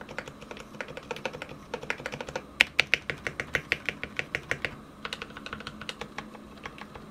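Typing on a Royal Kludge RK68 mechanical keyboard fitted with lubed Gateron Brown tactile switches and lubed Lumia stabilizers. The keystrokes come as separate sharp clicks. From about two and a half seconds in there is a louder, even run of about six strokes a second, then a short lull and more key presses.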